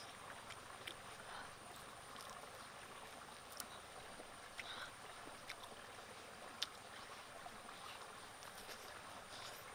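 Faint, steady rush of a stream, with a few soft clicks and smacks of a person chewing food.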